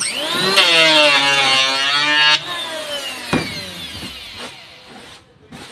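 Electric hand planer starting up with a rising whine and running for about two seconds, cutting along a wooden door jamb. It is then switched off and winds down with a slowly falling whine. A single knock comes about three seconds in, as the planer is set down on the board.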